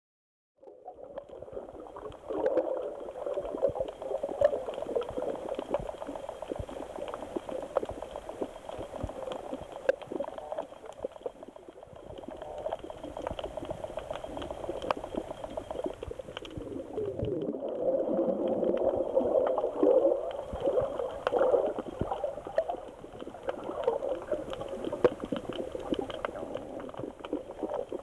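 Water heard through a waterproof camera's built-in microphone while it is submerged: muffled gurgling and sloshing with a steady crackle of small clicks, cutting in about half a second in and swelling for a few seconds past the middle.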